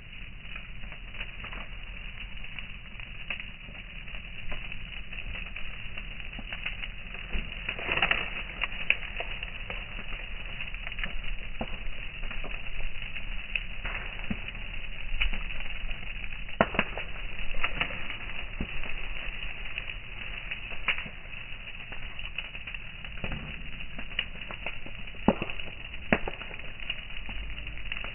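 Bonfire of dry brush and stalks burning, crackling with irregular sharp pops over a steady background of flame noise.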